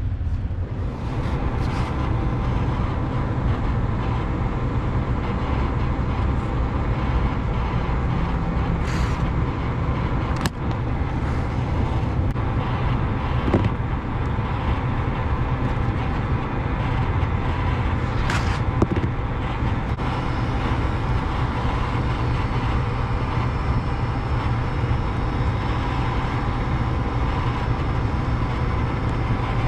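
A steady low rumble and hum of machinery or traffic, with a few short sharp clicks or knocks, the loudest about 18 seconds in.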